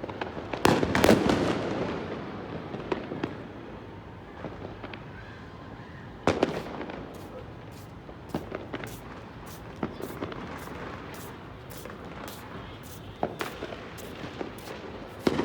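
Fireworks going off: a loud cluster of bangs about a second in and another sharp bang about six seconds in, each with a rumbling tail, then a run of quick sharp crackles about twice a second.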